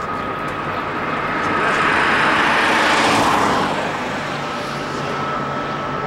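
A motor vehicle passing close by: its rushing road and engine noise swells over about two seconds, peaks around the middle, then falls away quickly.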